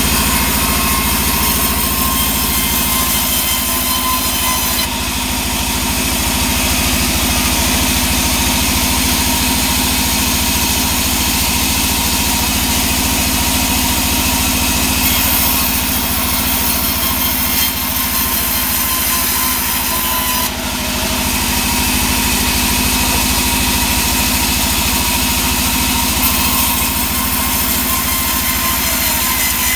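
A band sawmill runs steadily with a constant low machine drone while its blade rips sengon planks lengthwise. A high cutting hiss swells and fades as each board passes through the blade, strongest at the start, in the middle and near the end.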